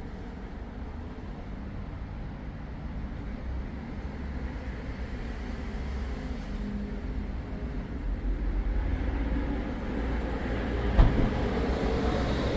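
Road traffic going past: a low rumble that builds louder over the second half, with one sharp knock near the end.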